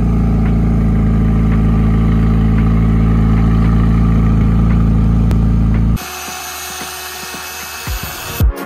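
McLaren 600LT's twin-turbo V8 idling steadily through its top-exit exhausts. About six seconds in, it gives way to the quieter, steady running of an electric paint polisher.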